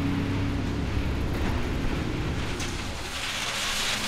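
Transit bus running, heard from inside the cabin as a steady low engine and road drone. About three seconds in, this gives way to the hiss of tires on wet pavement as a bus drives toward the listener.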